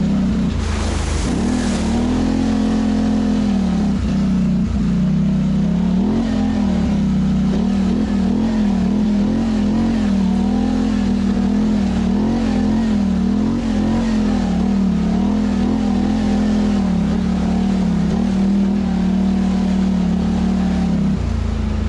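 Polaris Sportsman ATV's twin-cylinder engine running under load on a trail ride, its pitch rising and falling as the throttle is worked. About a second in there is a brief rush of splashing as the quad goes through a puddle.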